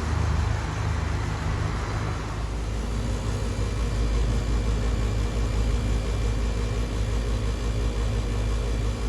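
Outdoor heat pump unit running: a steady low compressor hum with fan and airflow noise.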